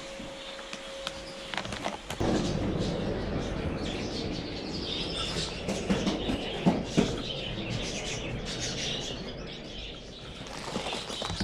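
Small birds chirping in a bird supply shop over a rustling background, with two sharp knocks about two-thirds of the way through.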